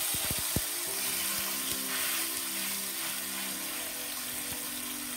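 Yellow croaker sizzling steadily as it pan-fries in oil in a wok, with a few light knocks of a wooden spatula against the fish and pan in the first half-second.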